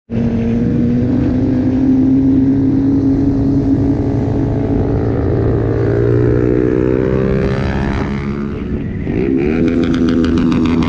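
Motorcycle engines running at a steady cruise. The pitch eases off about eight seconds in, then climbs again a second later as the throttle opens.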